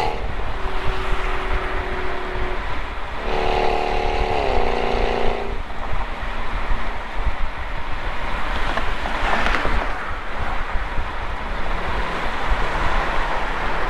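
Exhaust of a 2007 Jaguar XKR's supercharged 4.2-litre V8 at highway speed, picked up between the tailpipes. A droning exhaust note swells up about three seconds in, steps down in pitch and drops away a couple of seconds later; the rest is wind and road rush with a low rumble.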